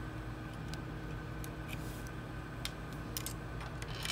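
Scattered light metallic clicks and ticks of a hex key working the screws that hold a 3D printer's extruder block to its aluminium plate, more frequent near the end, over a steady background hum.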